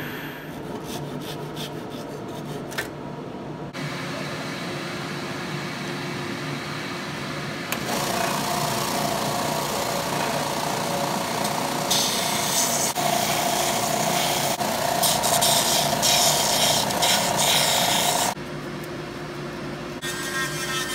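Small shop power tools finishing a wooden wand, one after another: the wood lathe spinning the wand while a cloth rubs it, then a sanding belt grinding the wood, and near the end a high-pitched Dremel rotary tool with a felt polishing bit. The sound changes abruptly several times as the tools change.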